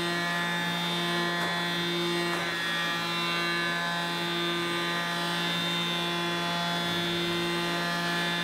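Tormach PCNC 770 CNC mill's spindle driving an end mill through an aggressive roughing cut in an aluminium block: a steady, unbroken whine with a strong low hum, the spindle running at about 10,000 RPM.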